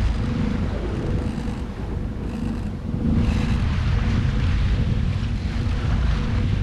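Sailboat's diesel engine running steadily under motorsail, a low rumble with a steady hum, while wind buffets the microphone and water rushes past the hull.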